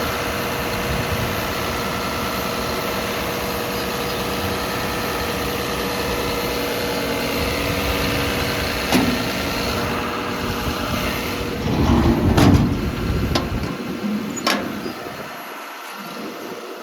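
John Deere 210G LC excavator's diesel engine idling steadily. Near the end come a few knocks and clicks, and the low engine rumble drops away.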